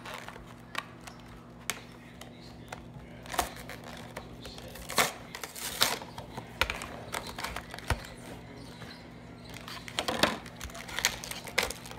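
Clear plastic action-figure packaging being handled and pulled open: irregular crinkling, crackling and clicking, with louder crackles now and then.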